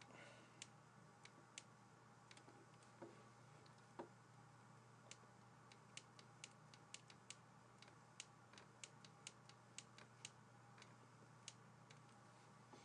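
Faint, irregular clicks and taps of a stylus on a pen tablet while handwriting, over a low steady electrical hum.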